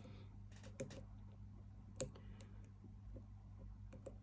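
A lock pick working the pins of a Surex 40 padlock: faint scraping with small scattered clicks, two sharper ones about a second in and about two seconds in, over a low steady hum.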